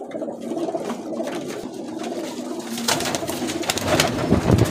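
Domestic pigeons cooing steadily; about three seconds in, a released pigeon's wings clap and flap loudly as it takes off.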